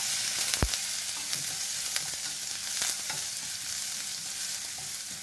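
Chopped onions sizzling in hot oil in a steel kadai, stirred with a metal spatula that scrapes and clicks against the pan. There is one dull knock about half a second in.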